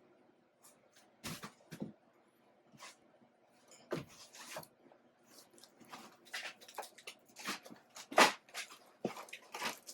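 Packaging being handled and pulled off a boxed desktop computer: scattered short rustles and knocks, the loudest about eight seconds in.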